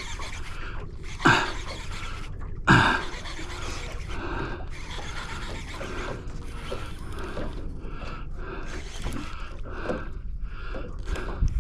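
A steady low rumble, with two sharp knocks about a second and a half apart near the start and a run of short scuffing noises after them.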